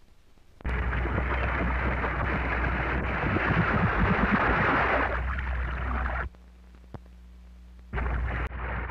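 Water splashing and rushing on an old film soundtrack, over a low hum; it starts suddenly under a second in, cuts off about six seconds in, and comes back briefly near the end.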